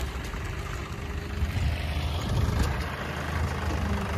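Tractor diesel engine idling steadily, a low rumble.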